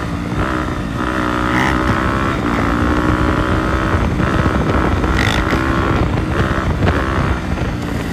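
Dirt bike engines running at speed on the road, the engine note dipping and picking up again every second or so with the throttle, with wind rushing over the microphone.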